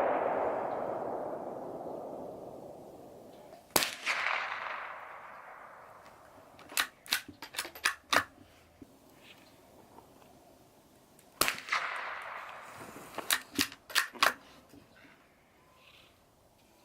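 Two .22 rifle shots, about four seconds in and again past the middle, each ringing out in a long, fading echo. Between and after them come quick clusters of four or five shorter, sharper cracks within a second or so.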